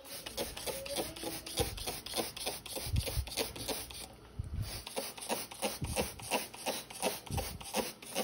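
Hand trigger spray bottle being squeezed again and again, a quick run of short spritzes of cleaner, several a second, with a few low handling bumps.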